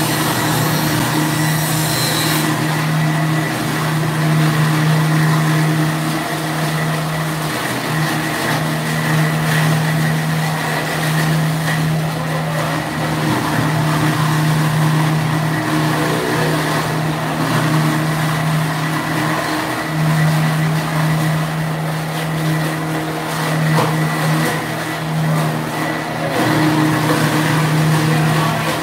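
Steady hum of a belt-driven meat bowl cutter's electric motor running, a low drone that weakens briefly now and then.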